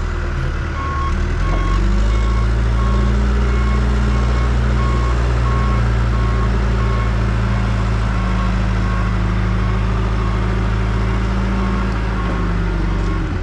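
Backhoe engine running steadily, its note rising a little about two seconds in, while its reversing alarm beeps evenly about once a second: the machine is backing up.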